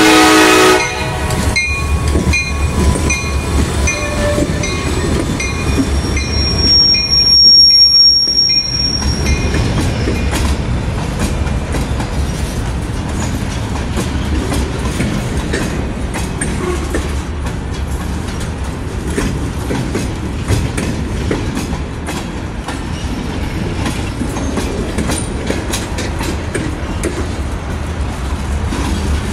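CSX freight train passing close by. The end of the horn blast cuts off within the first second. The diesel locomotives rumble past with a bell ringing steadily and a brief high wheel squeal about eight seconds in. Then freight cars roll by with a steady clickety-clack of wheels over the rail joints.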